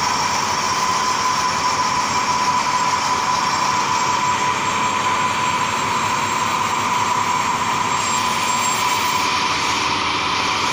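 Retrofitted 1988 Romi Centur-30 CNC lathe running: a steady machine noise with a constant high whine.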